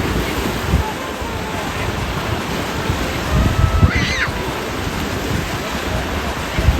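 Surf washing on the shore, with wind buffeting the microphone in gusts.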